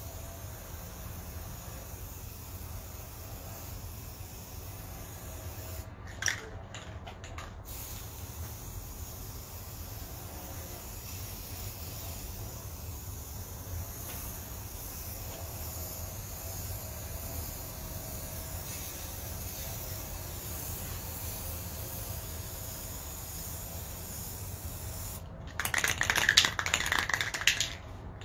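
Aerosol spray paint can spraying, with a long, loud hiss near the end and fainter spraying in the middle. A brief knock comes about six seconds in, over a steady low rumble.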